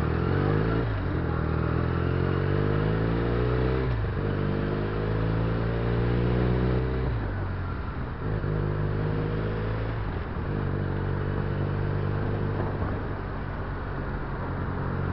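Benelli 300 cc parallel-twin motorcycle engine accelerating through the gears. Its pitch climbs and drops back at upshifts about one and four seconds in. The throttle closes about seven seconds in, and it then runs at a steady cruise.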